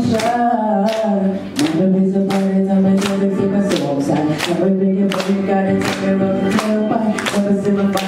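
A man singing a slow Thai pop ballad into a handheld microphone, holding long notes, over a steady beat of about two strokes a second.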